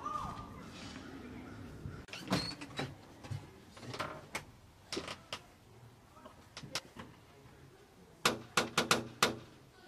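Knocking on a front door: a quick run of about six sharp knocks near the end, the loudest sound here, after a few scattered taps and clicks.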